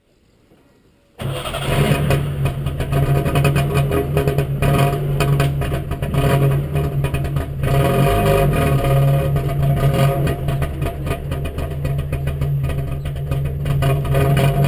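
A Trabant's two-stroke two-cylinder engine starts up about a second in and keeps running steadily.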